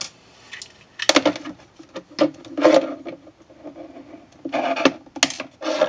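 Hand tools working on electrical wire: a wire stripper and cutter clicking and snipping several times, with scraping and rubbing of the tools and wire in between, as the soldered tips are cut off the wire ends.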